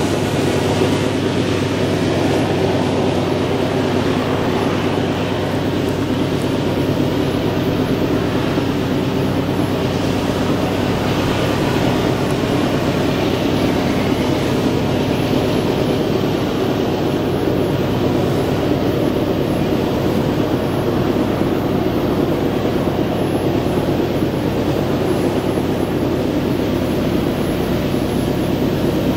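Multirotor drone's propellers and motors running steadily: a constant buzzing hum of fixed pitch with an even hiss over it.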